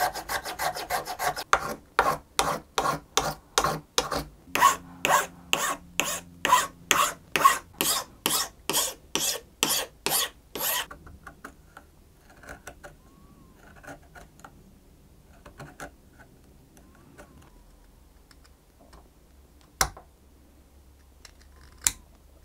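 A hand file worked back and forth across a maple violin bridge clamped in a jig, with even rasping strokes about two a second that stop about eleven seconds in. After that there are faint handling sounds and two sharp clicks near the end.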